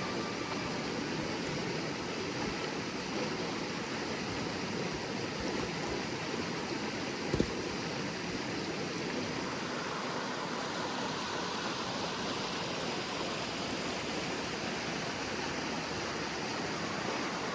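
River water rushing steadily, with one sharp knock about seven seconds in.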